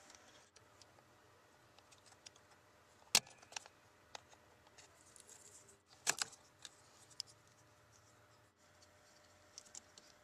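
Plastic wiring-harness connectors being unplugged by hand under a steering column. There are a few sharp plastic clicks, the clearest about 3 seconds and about 6 seconds in, with light ticking and rattling between them.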